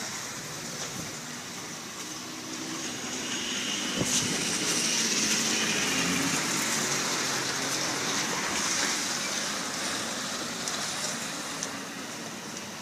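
Street traffic: a passing car's engine and tyre noise grows about four seconds in and fades away again after about nine seconds.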